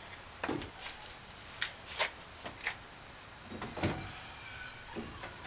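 Scattered knocks and clunks of painted wooden rack pieces with metal brackets being handled and set into a pickup truck bed, the loudest about two seconds in and again near four seconds.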